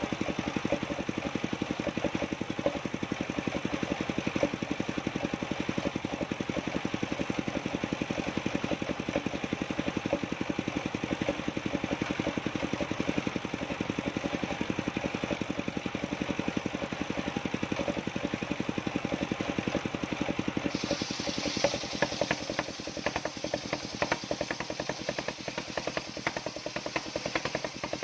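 An engine running steadily with an even, rapid pulse. About three-quarters of the way through, a hiss joins it and the sound changes.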